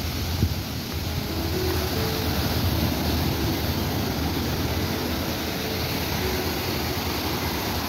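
Sea surf: waves breaking and washing up a beach in a steady, even rush.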